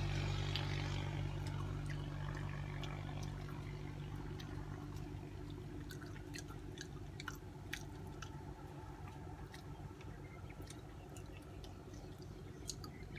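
Chewing and lip-smacking of people eating soft durian flesh, heard as many small scattered clicks, over a low engine hum that slowly fades away.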